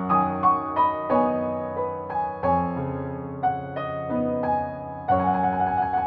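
Background piano music: gentle single notes over held low chords, with a new chord struck about five seconds in.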